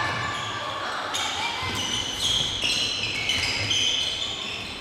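Players' shoes squeaking on the sports floor during floorball play: high squeals that hold a pitch briefly, then jump to another, several overlapping.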